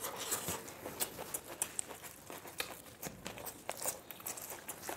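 Close-miked eating by hand: chewing and mouth noises from two people with their mouths full of biryani rice, and fingers working the rice on their plates. It comes as a run of small, irregular clicks, several a second.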